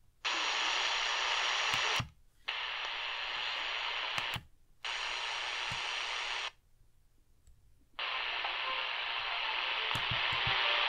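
Tivdio V-111 portable shortwave radio's speaker hissing with static between stations, muting briefly four times as it steps from frequency to frequency while tuning through the band.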